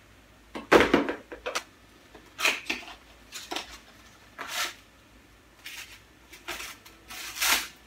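Rustling, light knocks and clicks of a fabric drone shoulder bag and its strap being handled, coming in short separate bursts about once a second.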